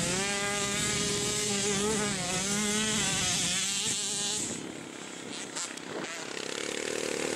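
Dirt bike engine revving hard: the pitch climbs just before the start, then holds at high revs with a slight waver for about four and a half seconds before it falls away quieter as the bike passes.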